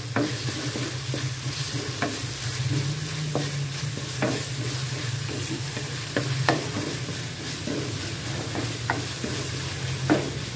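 Ground spice paste with sliced ginger sizzling in hot oil in a wok while a spatula stirs and scrapes it, with a sharp clack of the spatula against the pan every second or two and a steady low hum underneath. The paste is being sautéed until fragrant.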